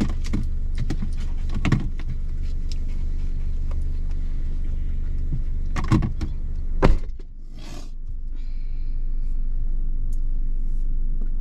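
Car interior: the engine's low rumble runs steadily under scattered knocks and rustling, with one loud thump about seven seconds in.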